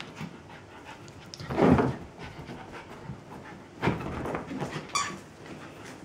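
Shetland sheepdog panting during rough play with a kitten, with a few louder scuffling bursts, the loudest about two seconds in.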